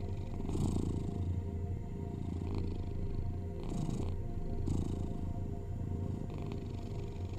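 A cat purring steadily, swelling with each breath every second or two, over a steady drone of binaural tones.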